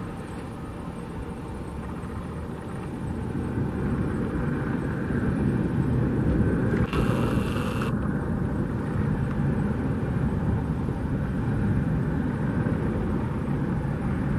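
Bombardier Dash 8 Q400's Pratt & Whitney PW150 turboprop engines running as the airliner taxis, growing louder about four seconds in as it comes closer.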